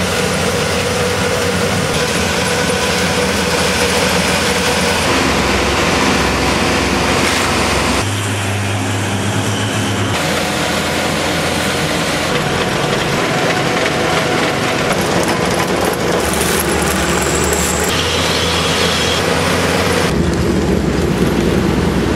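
Diesel engines of road-repair machinery running: a road-milling machine and a road roller, steady and loud, with the sound changing abruptly every few seconds as the shots change.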